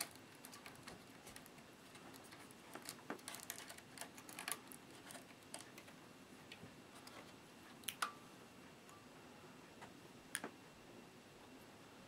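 Faint scattered clicks and taps of hands working on a laptop's plastic casing and internal parts, with two sharper clicks about eight and ten seconds in.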